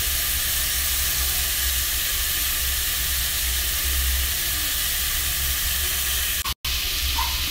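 Pork pieces sizzling as they brown in a hot pan: a steady frying hiss over a low rumble, cut off for an instant about six and a half seconds in.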